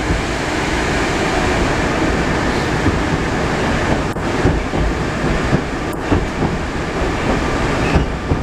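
Running noise of an 81-765.2 Moscow metro train heard from inside the passenger car: a steady rumble of wheels on rail and drive noise as the train runs into a station and slows, with two brief dips about four and six seconds in.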